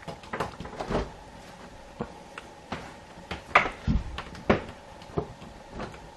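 Caravan kitchen doors and catches being opened and shut: a run of clicks and knocks, the loudest about three and a half to four and a half seconds in.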